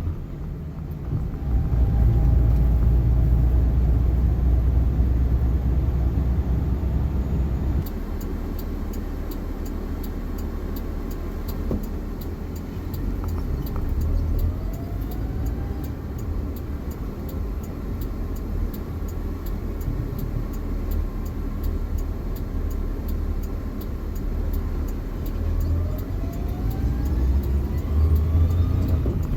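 Suzuki Jimny JA71 driving, its engine and drivetrain running with a low rumble. Twice a whine rises in pitch as the vehicle picks up speed, the sign of a failing transmission bearing.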